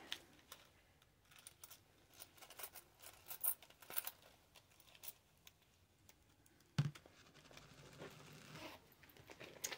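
Faint handling noise from rummaging for a coin: scattered light clicks and rustles, with a single soft knock about seven seconds in.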